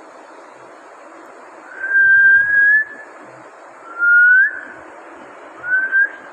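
Three clear whistled notes: a long, nearly level one about two seconds in, a shorter rising one about four seconds in, and a brief rising one near the end, over a steady background hiss.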